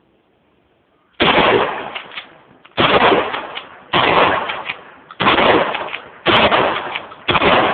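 12-gauge pump-action shotgun fired six times in quick succession, about one to one and a half seconds apart, each loud shot followed by a fading echo.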